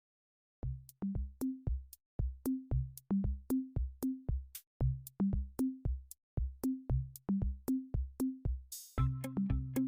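Background music: an electronic drum-machine beat with a deep bass drum, about two to three hits a second, entering after a short silence; a swelling noise sweep leads into a fuller section with added instruments near the end.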